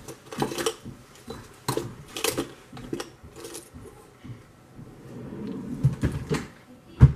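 Small odds and ends clattering and rattling as they are sorted and lifted out of a cluttered kitchen junk drawer, in a string of short knocks and clicks. A single heavy thump comes near the end.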